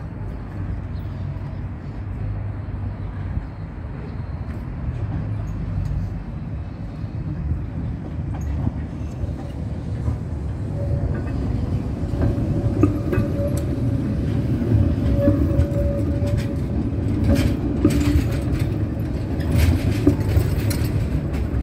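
Tram rolling slowly past close by, its wheels rumbling on the street track and growing louder as it nears. From about halfway through a steady whine joins in, and near the end there is a run of sharp clicks and knocks from the running gear.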